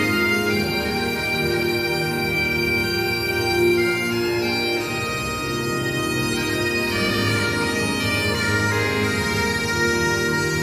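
Music of long held notes: a melody moving from note to note every second or two over a steady, unchanging drone.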